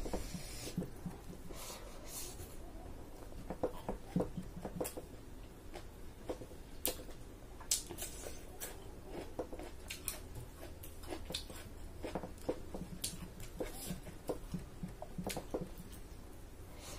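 A person eating by hand: chewing with wet mouth noises and lip smacks, and fingers working rice and curry on a plate, heard as irregular small clicks and squelches.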